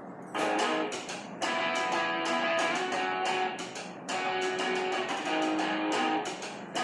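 Guitar-led instrumental music with strumming, played through an HP 15 laptop's built-in stereo speakers. It starts about half a second in.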